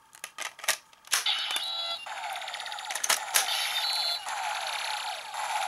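Plastic clicks as Gaia Memory sticks are snapped into the slots of a Kamen Rider Double DX Double Driver toy belt. About a second in, the belt's small speaker starts its electronic beeps and sound effects, which carry on steadily, with two more sharp clicks about three seconds in.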